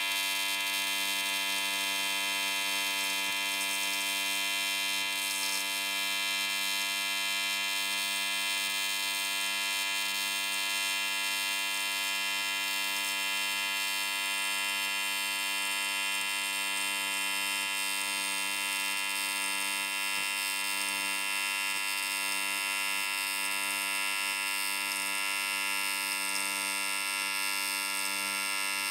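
AC TIG welding arc on aluminium, a steady buzz held without a break as a weld bead is run.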